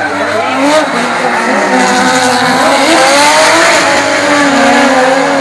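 Drift cars' engines revving hard, the pitch rising and falling, with tyres squealing as the cars slide sideways through the turn.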